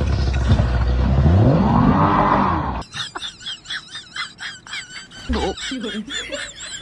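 Motorboat ploughing up onto a grassy bank: loud engine and hull noise with a pitch that rises and falls. About three seconds in it cuts off abruptly to a rapid run of short, high-pitched squeaks.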